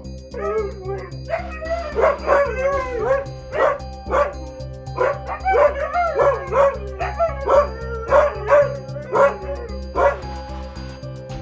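Huskies vocalizing in short, pitch-bending yips and whines, many in quick succession from about two seconds in, over background music.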